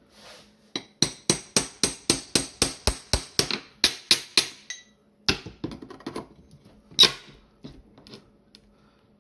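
Hammer blows on a nail puller, driving it into a wooden ammunition crate to lift the lid: a quick, even run of about fifteen knocks, roughly four a second, then a few separate knocks, the loudest near the end.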